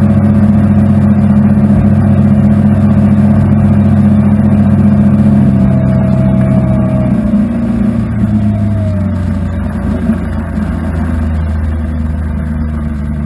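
Boat's Yamaha outboard engine running at speed, a loud steady drone with the rush of wind over the boat. About seven to eight seconds in the engine eases off a little, dropping slightly in pitch and level.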